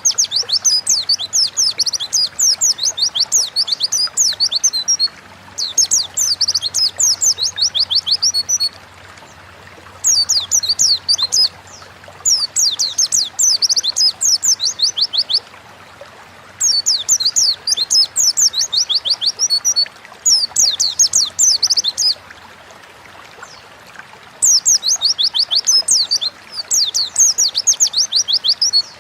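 A pleci (white-eye) singing in full voice: fast, high twittering phrases of rapid rising and falling notes, in bursts of a few seconds with short pauses between them.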